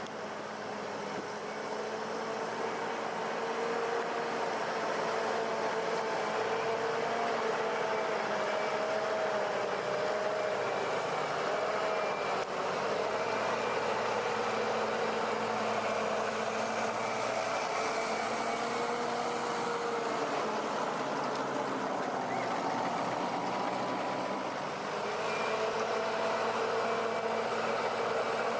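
A heavy vehicle's engine running steadily, its pitch wavering a little up and down, under a constant rushing noise. It grows louder over the first few seconds and dips briefly near the end.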